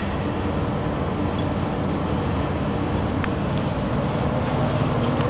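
Steady low mechanical hum with a hiss over it, unchanging throughout, with a faint click about three seconds in.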